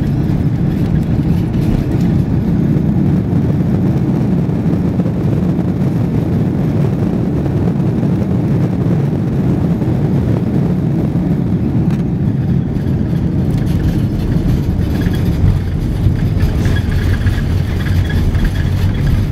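Steady low rumble inside the cabin of an Airbus A330-300 rolling along the ground after landing: engine and airframe noise heard from a seat over the wing.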